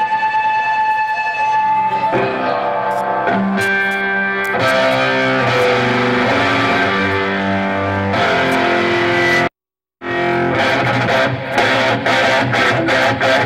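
Distorted electric guitar through an amplifier ringing out held chords and notes, changing every few seconds, without drums. The sound cuts out completely for about half a second a little past the middle.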